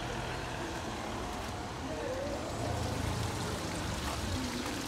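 Steady city street noise of passing traffic, with a low rumble and a hiss like tyres on the road.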